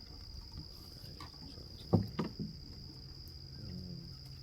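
Steady high-pitched drone of crickets or similar insects, with two short, loud animal calls close together about two seconds in, likely from the sheep, and a fainter call near the end.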